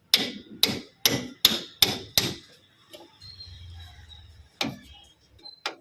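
Hammer blows on the e-rickshaw while it is being repaired for a rattling body: six quick strikes, about two or three a second, a pause, then two more near the end.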